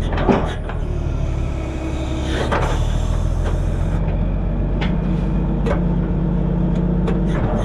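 Heavy diesel machinery engine running steadily, with a few sharp knocks. The engine note changes about a third of the way in, and a higher tone drops out near the end.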